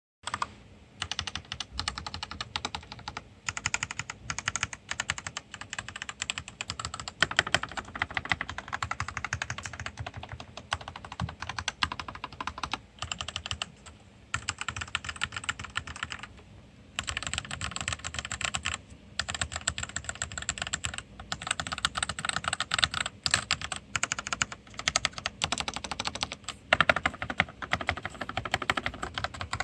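Continuous typing on a Monstergear Ninja 87 RGB hot-swap mechanical keyboard: a rapid stream of key clacks, with a few brief pauses about halfway through.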